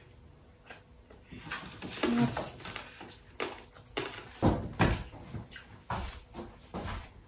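Table-side handling noises: irregular clicks, rustles and small knocks of shrimp being peeled by hand, with two heavy low thumps about four and a half and five seconds in.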